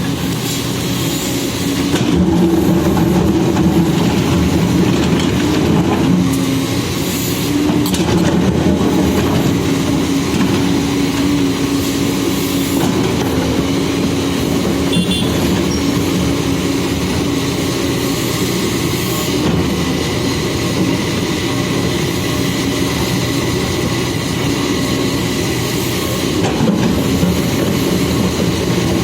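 Backhoe loader's diesel engine running steadily, its note shifting slightly now and then.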